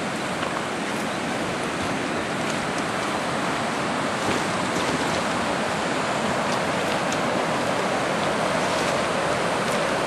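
Rushing water of a shallow river rapid: a steady, even rush that grows slightly louder.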